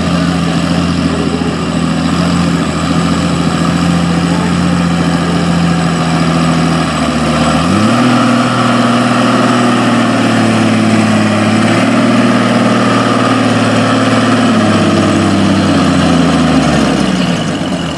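Farm pulling tractor's engine running at a steady speed. About eight seconds in it revs quickly up to a higher speed and holds there for several seconds, then drops back down near the end.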